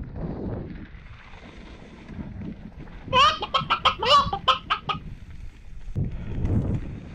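A chicken squawk sound effect: a quick run of about nine short squawks over two seconds, starting about three seconds in. Around it is the rumble of wind and mountain-bike tyres on the dirt trail.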